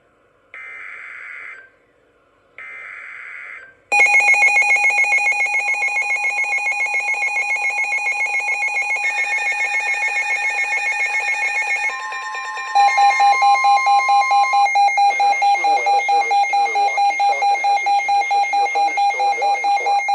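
Emergency Alert System signal on NOAA Weather Radio: two one-second bursts of the digital warning header data, then from about four seconds a loud, steady alert tone with a fast flutter, whose pitch changes around twelve seconds in. It announces a new severe thunderstorm warning.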